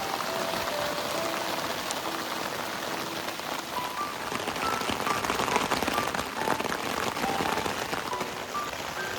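Heavy rain falling steadily in a dense patter, with a soft background music melody of short notes over it.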